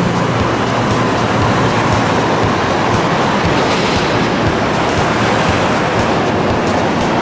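Container top lifter's diesel engine running as its mast lifts a container off a freight flatcar: a loud, steady rushing rumble.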